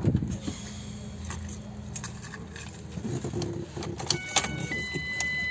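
Clicks and jingling rattles inside a car as a man climbs into the passenger seat, with a short electronic chime of steady tones about four seconds in.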